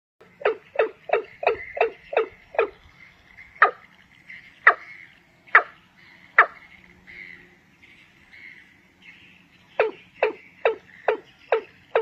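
Sharp, repeated clucking bird calls: a quick run of about seven notes, then single notes about a second apart, then another quick run near the end.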